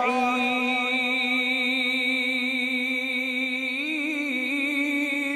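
A male qari's voice in melodic Quranic recitation (tilawat), holding one long vowel on a steady pitch, with a brief wavering ornament about four seconds in.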